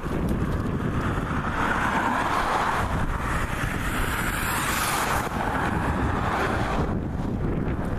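Winter wind buffeting the microphone with a steady low rumble. A louder rushing hiss builds from about a second in and drops away about seven seconds in.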